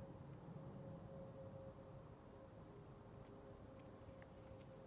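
Faint, steady high-pitched insect chorus, with a low rumble underneath.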